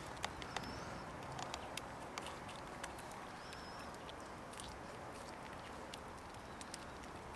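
Fox squirrel gnawing kernels off an ear of white corn: irregular sharp crunching clicks, most frequent in the first three seconds and sparser after.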